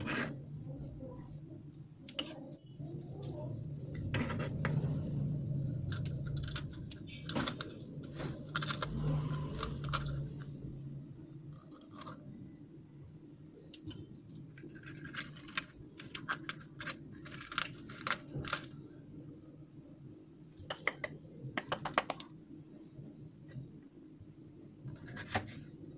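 Serrated kitchen knife cutting onion and green bell pepper on a plastic cutting board: irregular sharp taps of the blade on the board, with quick runs of chops in the second half. A low hum underneath is louder in the first half.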